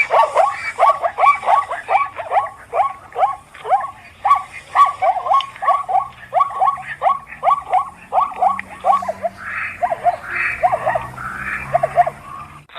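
Zebra barking call: a rapid run of short, yelping barks, about three a second, that thin out and come more sparsely near the end.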